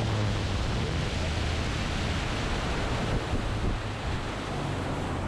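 Steady wind rush on the microphone with a wash of water noise, and a low hum underneath.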